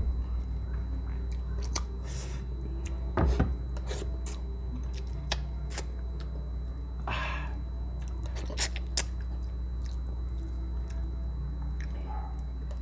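Close-miked mouth sounds of someone eating vinegar-stewed milkfish off the bone: soft chewing, sucking and wet lip smacks, with a handful of sharp clicks scattered through. A steady low hum runs underneath.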